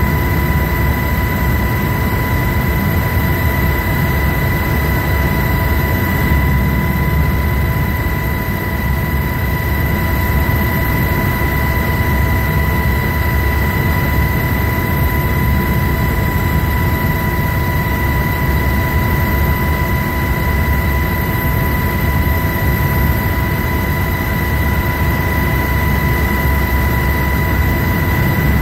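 UH-60 Black Hawk helicopter running in flight, heard from aboard: a loud, steady deep rumble with a steady high whine over it.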